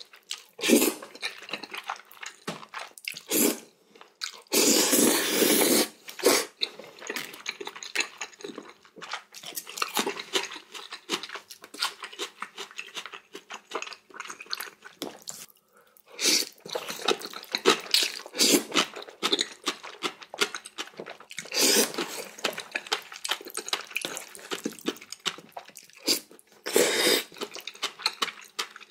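A person slurps noodles in several long, noisy pulls, the longest lasting over a second. Between the slurps come close-miked chewing and small wet clicks.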